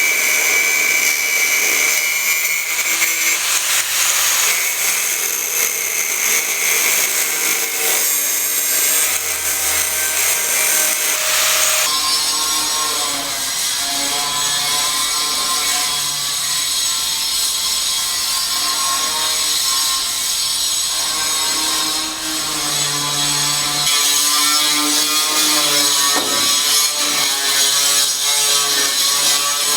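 Construction work: power tools sawing and cutting, a steady grinding noise that changes character about twelve seconds in and again near twenty-four seconds.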